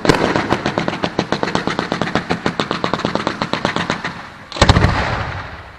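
Aerial fireworks firing in a rapid barrage: a fast, even run of sharp cracks, about ten a second, for about four seconds. Then a louder cluster of deeper bangs as a volley of comets is launched, fading away.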